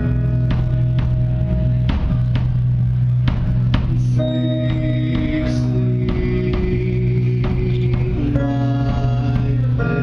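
Band music: sustained keyboard chords over a steady bass note, with drum hits about twice a second early on. The chords change a little after four seconds in and again about eight seconds in.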